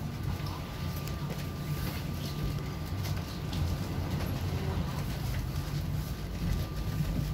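Cabin noise inside a ZiU-682G-016 trolleybus: a steady low rumble with a thin, steady high whine and scattered light rattles and clicks.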